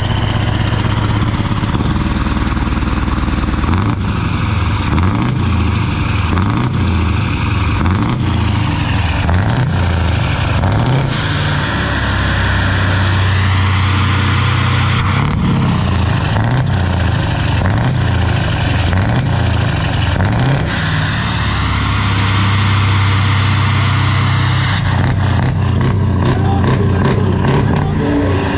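Big diesel truck engine through a large open side exhaust pipe. It idles steadily at first, then is revved over and over in short rising-and-falling blips, with longer held revs in between.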